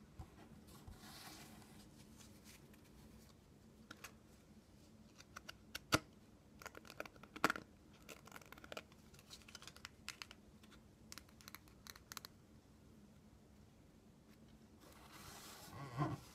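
Playing cards being handled softly: cards sliding against each other and laid down, with scattered light taps and flicks and two sharper card snaps about six and seven and a half seconds in. Near the end there is a brief louder rustle of cards.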